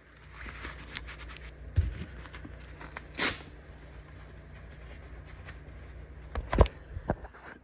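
Faint handling noises, rubbing and scraping with a few short knocks, over a steady low hum.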